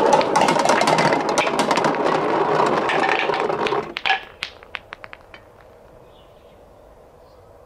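Several marble-run balls rolling down a plastic rain gutter and through a plastic bucket funnel, a continuous rolling rumble with many clicks, which stops suddenly about four seconds in. A run of separate clicks and knocks follows, thinning out over a second or so as the last balls land and settle in a wooden bowl.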